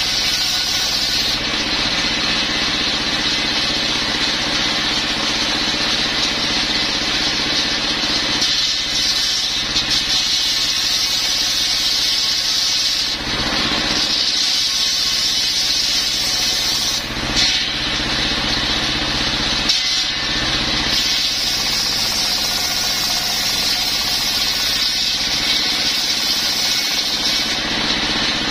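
Stationary single-cylinder diesel engine running steadily, driving a circular table saw that rips a coconut palm trunk lengthwise; the blade's cutting hiss drops away briefly a few times between cuts.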